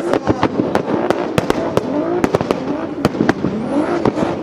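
Turbocharged drift car's anti-lag system firing rapid, irregular bangs and pops from the exhaust, several a second, while the engine's pitch rises and falls.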